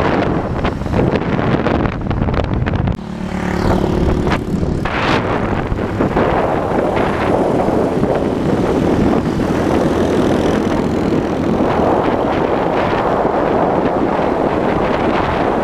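Wind rushing over the microphone of a moving vehicle in traffic, over engine and road noise. About three seconds in, the wind drops briefly and a steady low engine hum comes through, then the rush builds again.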